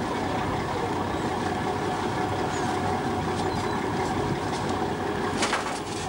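A vessel's engine running steadily: a constant drone with a steady hum in it, and a few brief sharp clicks near the end.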